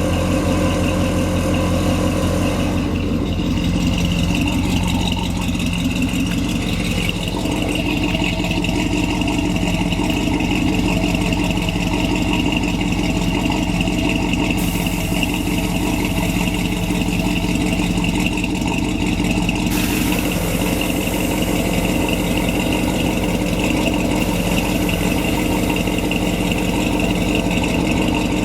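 1966 Chevrolet pickup's engine idling steadily. About fifteen seconds in a hiss of air joins it, growing fuller a few seconds later, as air escapes from the truck's air-bag suspension.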